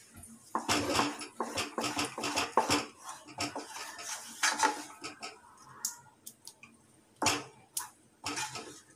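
Wooden spatula scraping and knocking against a metal pan while stirring thick wheat halwa batter. The scrapes come thick and fast for the first few seconds, then thin out to scattered knocks.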